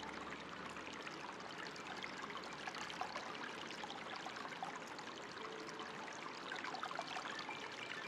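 Running water trickling and splashing steadily, a continuous stream of small droplet splashes.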